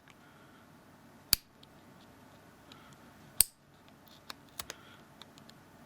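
Two sharp clicks about two seconds apart, then a few lighter ticks near the end: metal tweezers clicking and tapping against the small plastic parts of a phone being taken apart, as the camera switch is lifted out.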